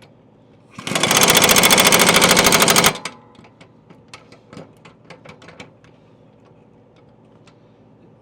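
Pneumatic impact wrench hammering on a riding mower's blade nut in one burst of about two seconds, then a few light clicks and knocks as the socket is handled. A second burst starts near the end. The nut is not coming loose under the impact wrench.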